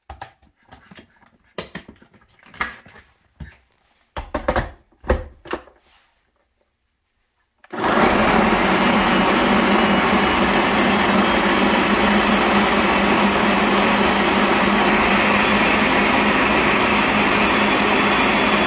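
A few clicks and knocks as the blender jug is fitted and locked onto its base, then about eight seconds in a Ninja Professional 1100 W countertop blender starts and runs at a steady, loud whir, puréeing a full jug of chopped vegetables and water.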